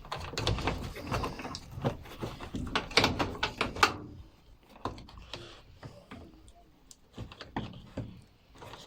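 Knocks, clicks and clatter of hands handling a washing machine's panels and parts. The knocks come thick and fast for about the first four seconds, then thin out into scattered, quieter clicks.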